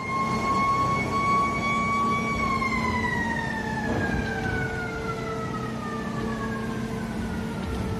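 A loud, long single-note horn blast, held steady for about two seconds, then sliding slowly down in pitch as the source passes by. A steady lower tone and a rumble run underneath.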